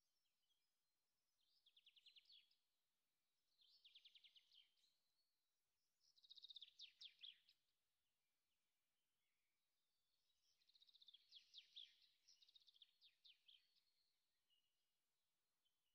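Faint bird song: short trilled phrases of quick chirps every couple of seconds, with quiet pauses between.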